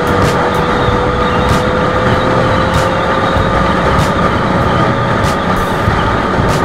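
Sport motorcycle engine running at highway speed, its pitch rising slowly as the bike gathers speed, mixed with heavy wind rush on the mounted camera's microphone. Short ticks come through about once a second.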